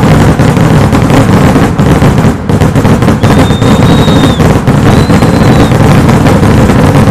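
Very loud, continuous barrage of exploding rockets and firecrackers, cracks packed so tightly they run together with no gaps. Two brief high whistles sound partway through.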